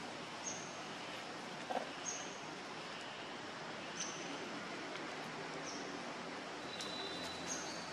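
Forest ambience: a steady hiss, with a short high chirp repeating about every one and a half to two seconds and a longer, slightly lower note near the end.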